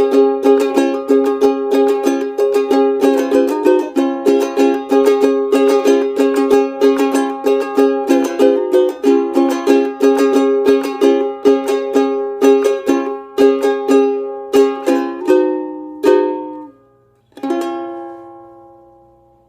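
Ukulele played clawhammer (frailing) style: a quick, rhythmic run of struck notes and brushed strums. Near the end it slows and finishes on a last chord that rings out and fades.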